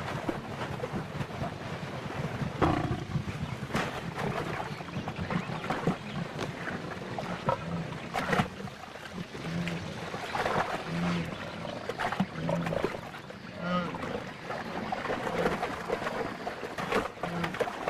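Lioness growling as she wrestles a wildebeest at the edge of shallow water, with irregular splashes and thuds from the struggle.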